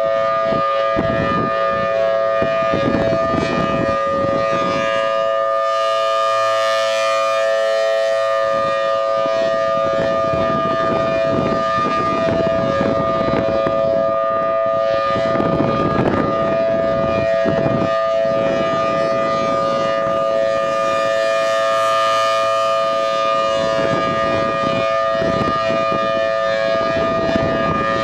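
Federal Signal Thunderbolt 1000T tornado siren sounding a steady, loud tone with no rise or fall in pitch, two close notes held together. A rushing noise swells and fades underneath it.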